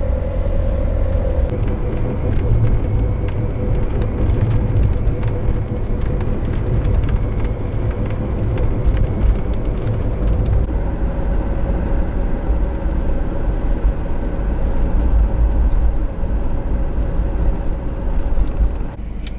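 Car on the move: a steady low rumble of road and engine noise with a steady hum over it, easing slightly near the end.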